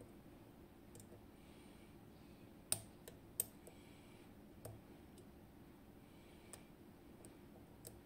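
A steel hook pick and tension wrench clicking against the pins inside a DOM IX Twido euro cylinder lock as it is being picked. The clicks are faint and scattered, and the two loudest come close together a little under three seconds in.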